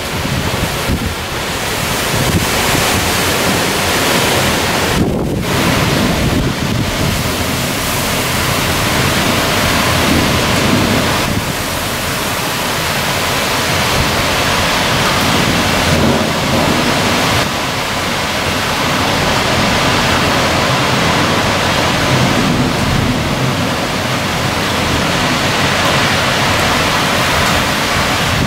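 Heavy rain pouring down in a thunderstorm, a loud, steady hiss, with gusting wind in the trees and buffeting the microphone.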